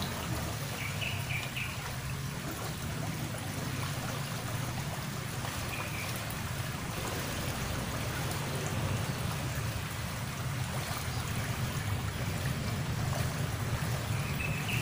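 Water of a small stream rushing steadily over a low concrete ledge, a continuous splashing flow.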